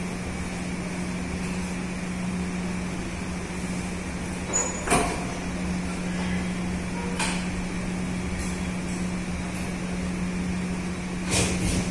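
Steady machine-like background hum, with a sharp knock about five seconds in and a few more knocks near the end.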